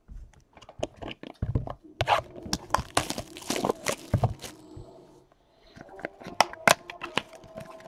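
Clear cellophane wrapper on a trading card pack crinkling and tearing as it is pulled off, with sharp clicks and taps as the cards are handled. The crinkling is busiest in the middle; clicks return near the end.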